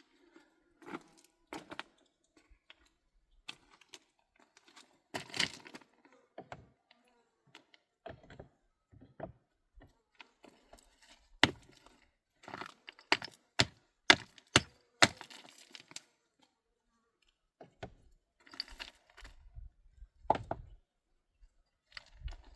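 A series of irregular sharp cracks and knocks, with the loudest ones bunched together in the middle.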